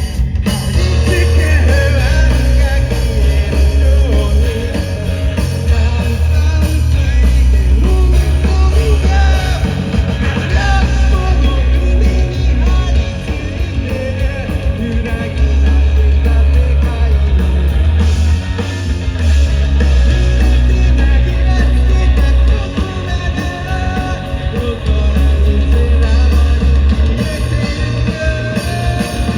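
Rock band playing a song with a singer, over a heavy bass line.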